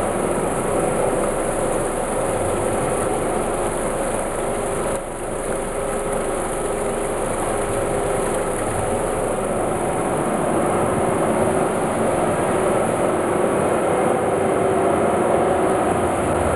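Strawberry vortex washing machine running: a steady mechanical hum and rushing noise from the machine, with a brief dip about five seconds in.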